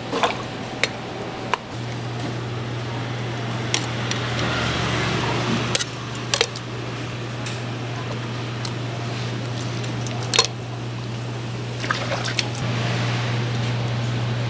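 Steel cleaver knocking sharply on a wooden cutting board about eight times while a milkfish is filleted, with wet splashing of water on the board in two stretches. A steady low hum runs underneath.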